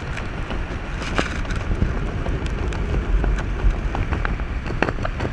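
Wind rushing over the camera microphone during a parachute canopy descent, a steady low rumble with scattered sharp ticks.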